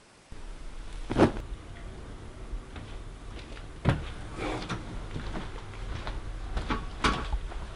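A low steady room hum with a handful of sharp knocks and thumps from someone moving about indoors. The loudest comes about a second in, with others near the middle and near the end.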